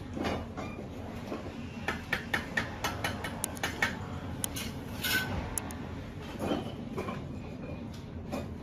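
A quick run of sharp metallic taps and clinks, about four or five a second, from about two to four seconds in, then a brief scraping swish and a few scattered knocks.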